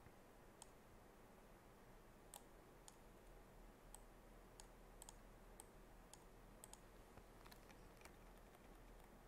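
Near silence with faint, scattered computer mouse clicks, about a dozen spread irregularly.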